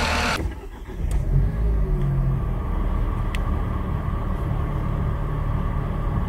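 Nissan Pulsar's 1.2-litre petrol engine running at low idle, heard from inside the cabin as a steady low rumble. A louder, hissy sound of the engine bay cuts off abruptly about half a second in. This is the cold-start idle at which the RPMs jump up and down, which the dealer puts down to the AC compressor's load.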